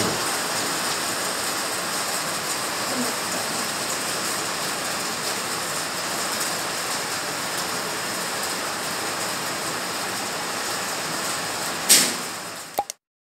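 Rain and small hail falling steadily, a continuous hiss. About twelve seconds in there is one short, sharp, loud clatter, and then the sound cuts off suddenly.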